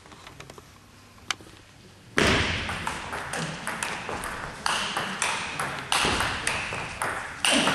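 Table tennis ball play: a few light ticks and a single click while the serve is prepared, then from about two seconds in a fast rally of the ball clicking off rubber paddles and the table, one sharp knock after another, each trailing off in the hall.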